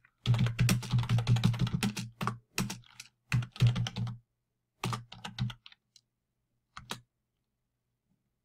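Typing on a computer keyboard: a quick run of keystrokes lasting about four seconds, a few more about a second later, and a last key press about seven seconds in.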